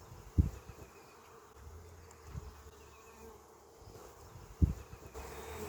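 Honeybees buzzing around an opened nuc hive as its frames are inspected, a faint steady hum. Two dull low thumps, about half a second in and near the end, stand out above it.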